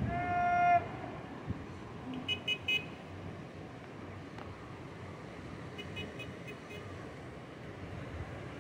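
One short vehicle-horn honk right at the start over steady outdoor background noise, followed by short high-pitched pips: three a little after two seconds in, and a longer run of them around six seconds in.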